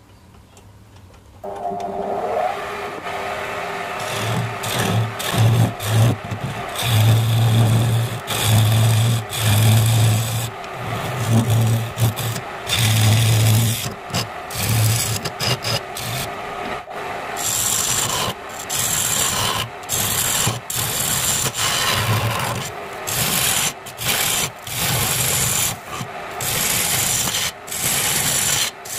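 A homemade wood lathe starts up about a second and a half in. A hand-held chisel then cuts into the end of the spinning wood blank to hollow it out, in repeated rough scraping strokes with short breaks between them.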